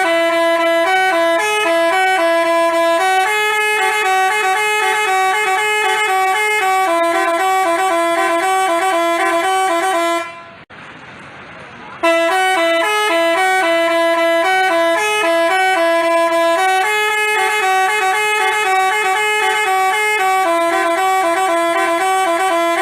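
A telolet basuri multi-tone horn plays a melodic tune of stepped, held tones. It stops for about a second and a half near the middle, then plays the same tune again.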